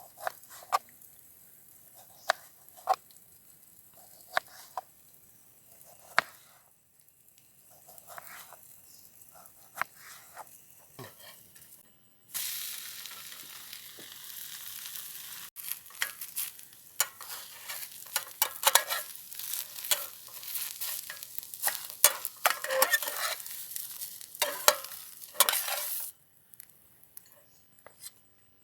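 Scattered light knocks and clicks, then food sizzling loudly in hot oil from about twelve seconds in, with stirring clatter over it, until it stops abruptly near the end.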